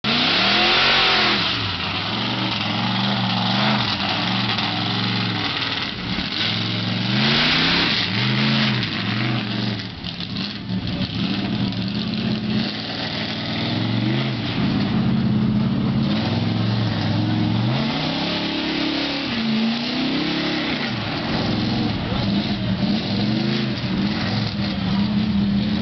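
Lifted Ford pickup's engine revving hard again and again as it churns through deep mud on big mud tires, the pitch climbing and dropping every few seconds, with louder rushing surges near the start and about seven seconds in.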